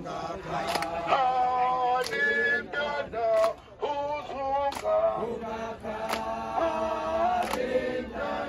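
A group of people singing together in a chant-like song, with hand claps about once a second.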